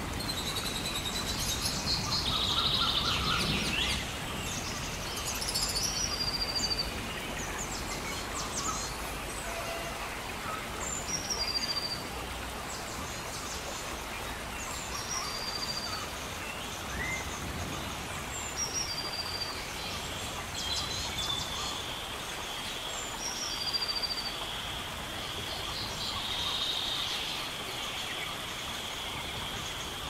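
Rainforest ambience: a bird repeats a short, high, falling call every three to five seconds, with more birds calling together in the first few seconds, over an even hiss of rain. A steady high whine comes in about two-thirds of the way through.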